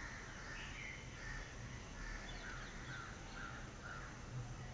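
Birds calling, a run of short repeated calls, over a steady low hum.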